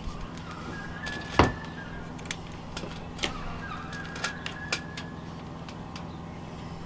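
Metal knocks and clanks from stainless steel stovepipe sections being handled and fitted together, the loudest about a second and a half in, with a thin high scraping tone as the pieces slide. A low steady hum runs underneath.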